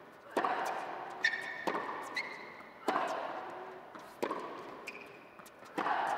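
Tennis ball being struck by racquets and bouncing on an indoor hard court during a baseline rally, a sharp knock roughly every second and a half with smaller knocks in between, each one echoing in a large, mostly empty hall. Short high squeaks, typical of players' shoes on the hard court, come in between the hits.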